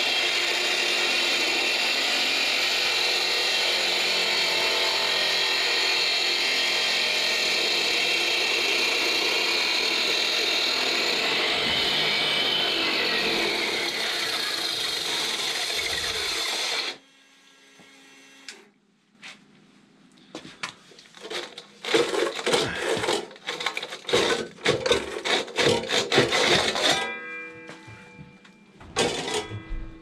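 Handheld electric concrete cut-off saw running steadily under load as it wet-cuts through old, thick basement floor concrete; the motor stops abruptly a little over halfway through. After that, only scattered short knocks and clatter.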